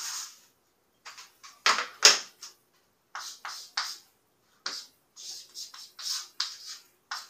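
Chalk scratching on a blackboard in a run of short, separate strokes as letters and bonds of a chemical formula are written, with a louder stroke about two seconds in.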